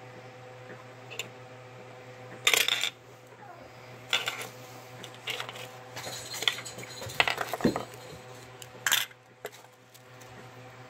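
Metal ball chain and dog tag clinking and rattling as they are handled and set down on a wooden tabletop, along with knocks from a hard plastic capsule being handled. The sound comes as a run of short clattering bursts, the loudest about two and a half seconds in.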